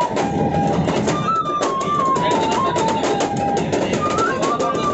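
Bamboo flute playing a folk melody in phrases that step downward, a new phrase starting about a second in and again near the end. A fast, steady percussive beat runs under it.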